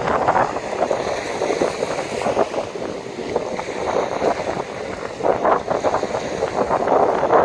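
Strong gusting wind buffeting the microphone, a rough rumbling rush that swells and eases, with stronger gusts about five seconds in and near the end.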